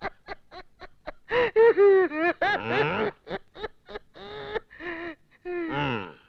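A woman laughing: a string of quick short bursts, then longer, high-pitched peals.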